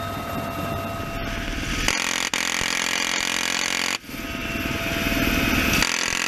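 Helicopter cabin noise with a steady whine, then a GAU-17/A 7.62mm door-mounted Gatling gun firing a long burst. The burst starts abruptly about two seconds in as one continuous, rapid buzz. It breaks off sharply near four seconds, then the gun fires again.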